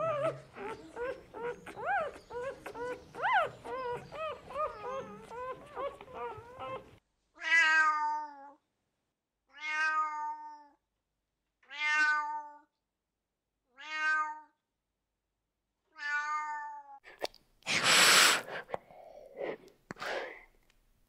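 High, quickly repeated whining squeaks, then a domestic tabby cat meowing five times, about two seconds apart. Near the end comes a loud, short noisy burst.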